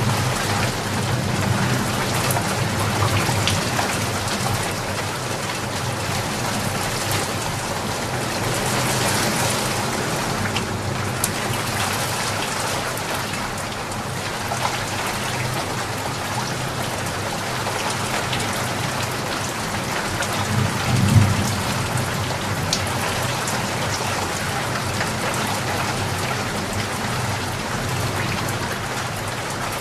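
Steady rain falling, with low rumbles of thunder at the start and again about two-thirds of the way through.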